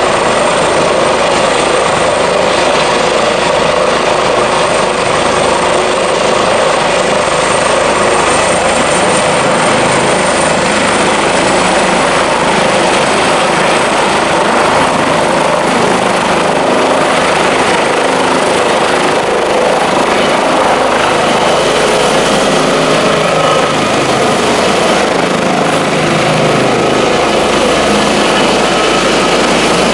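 Airbus H145 rescue helicopter with Fenestron tail rotor running at full rotor speed and lifting off, a steady loud rotor and turbine din. A thin high turbine whine rises slightly in pitch about a third of the way in as power comes up.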